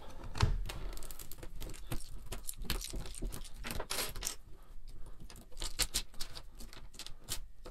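Plastic Lego bricks being unsnapped and pulled off a mould box around a set silicone mould, giving many quick, irregular clicks and clacks.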